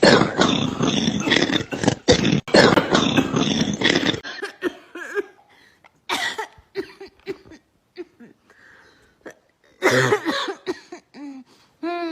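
A person in a coughing fit: a loud, continuous run of hacking coughs for about the first four seconds, then quieter short coughs and catching breaths, and another loud burst of coughing about ten seconds in.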